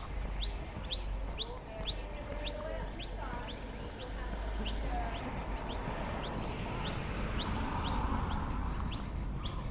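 Birds calling: a steady series of short, high, rising chirps, about two a second, with lower warbling calls underneath.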